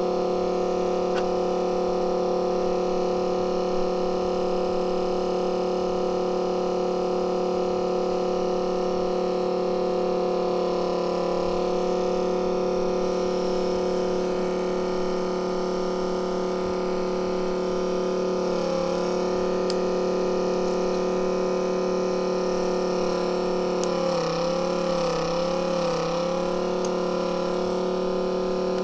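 Steady electrical machine hum from the screen-repair bench equipment, several even tones held throughout, wavering briefly about two-thirds of the way in and again near the end.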